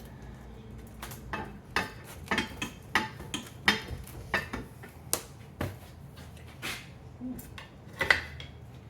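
Irregular metallic clinks and knocks, about twenty of them, as the camshaft carrier of a Subaru AVLS cylinder head is worked loose and separated from the head by hand.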